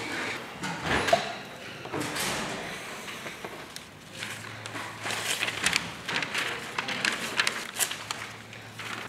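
Newsprint pages rustling and crackling as a newspaper is opened and its pages handled and turned, in a run of short, irregular swishes.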